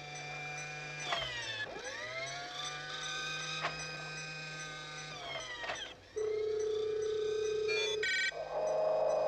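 Electronic robot sound effects over a low hum: whining tones slide down and back up about a second in, slide down again about five seconds in, then a steady tone, a quick run of beeps, and a buzzing tone near the end, as the robot's mechanical arm moves.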